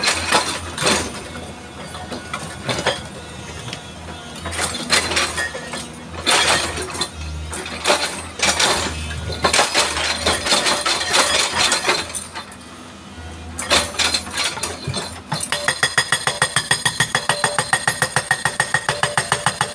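Hydraulic rock breaker on a Tata Hitachi excavator working on boulders, over the low hum of the machine's engine. For most of the time there are irregular clinks and cracks of steel on rock and of rock splitting. About four seconds before the end the hammer settles into a fast, steady pounding.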